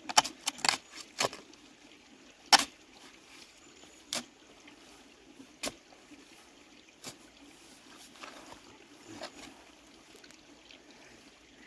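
Spade digging into wet pond muck, giving sharp irregular scrapes and knocks roughly every second, over a faint trickle of water.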